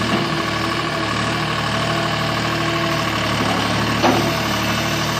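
A Gehl 4640 Turbo skid steer's turbocharged diesel engine idling steadily. A single short knock is heard about four seconds in.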